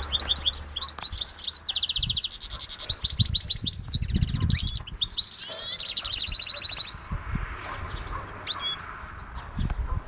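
Goldfinch × canary hybrid (a mule) singing a loud, fast song of rapid trills and warbled twittering phrases for about seven seconds. The song breaks off, and a single short call comes near the end.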